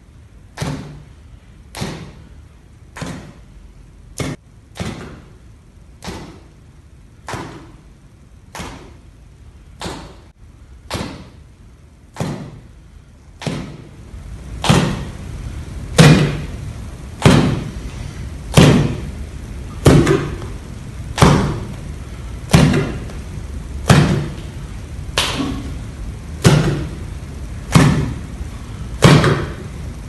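Steady rhythmic slapping thuds, about one every 1.2 seconds, each with a short ringing tail; from about halfway in they become louder and deeper.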